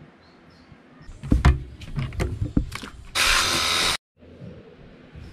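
Knocks and clatter of plastic bottles being handled and set down on a wooden table, then a loud steady hiss lasting under a second that cuts off abruptly.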